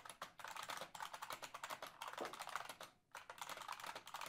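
IBM Model M keyboard's buckling-spring keys being typed on fast, a dense run of sharp keystrokes with a brief pause about three seconds in.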